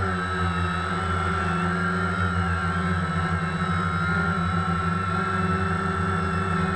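DJI Phantom quadcopter's motors and propellers whining steadily in flight, the pitch wavering slightly, heard from a GoPro mounted on the drone inside its waterproof housing.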